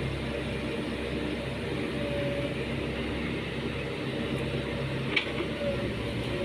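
Heavy diesel engine running steadily at a constant pitch, with a single short metallic click about five seconds in.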